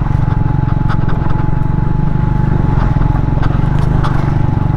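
Triumph Speed 400's single-cylinder engine running steadily at low road speed on a loose gravel track, with stones clicking and crunching under the tyres.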